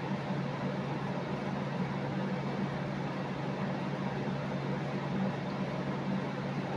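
Steady machine hum: a constant low drone under an even hiss, unchanging throughout.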